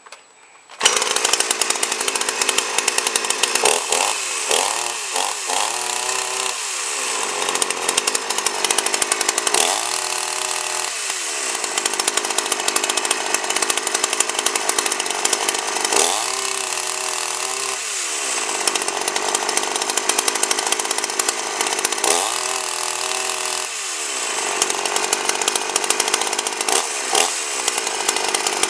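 52cc GIO two-stroke chainsaw running, coming in abruptly about a second in. It is mostly held at high revs, dropping toward idle and revving back up about five times. The owner finds it runs well but rich, not revving out fully at the top end and wanting to be leaned out.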